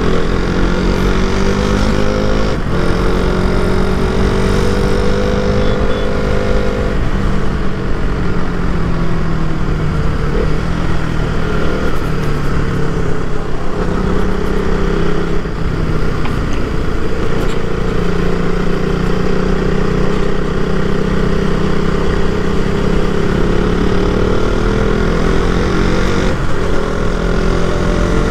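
KTM Duke 200's single-cylinder engine and exhaust while riding. The engine note climbs and drops several times as the throttle is opened and closed.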